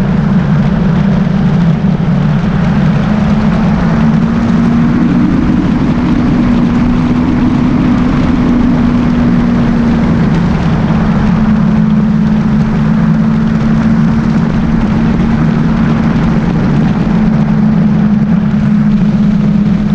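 Motorcycle engine running steadily at cruising speed, with wind and road noise rushing past; the engine note rises a little about five seconds in and eases back a few seconds later.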